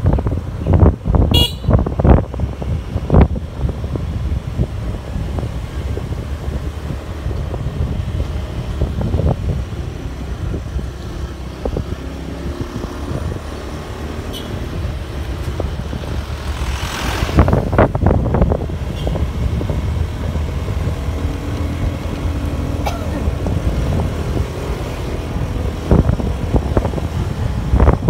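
Wind buffeting the microphone and road noise from a motor scooter riding along a road, with a few sharp knocks in the first seconds and a louder rush about seventeen seconds in.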